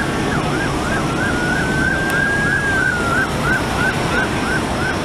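Emergency vehicle sirens: one in a fast yelp of about three sweeps a second, over a second siren in a slow wail, with a steady rumble of highway traffic beneath.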